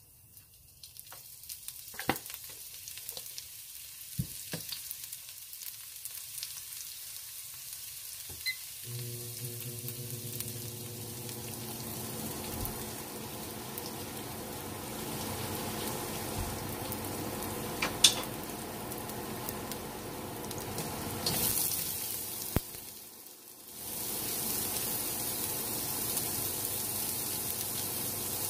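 Minced garlic sizzling in hot fat in a carbon-steel wok, the sizzle building gradually, with a few light clicks early and a sharp clack midway. A steady low hum joins about a third of the way in. After a brief lull near the end the sizzle comes back louder, with chopped onion now frying in the wok.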